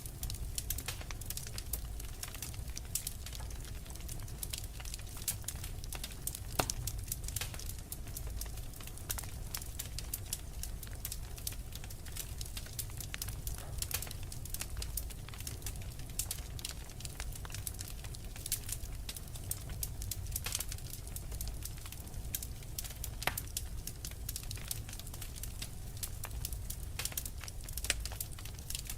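Wood fire crackling: many small irregular pops and snaps, a few louder than the rest, over a low steady rumble.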